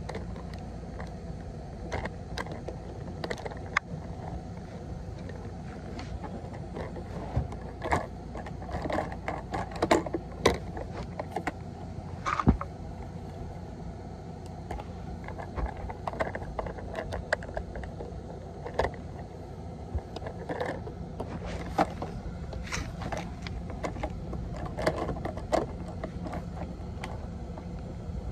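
Plastic toy garbage truck and small plastic toy garbage cans being handled: irregular clicks, taps and light clatters of plastic parts knocking together, over a steady low hum.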